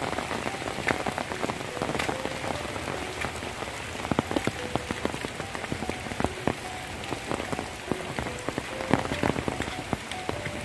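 Heavy rain falling steadily, with many sharp, close drop hits scattered through it.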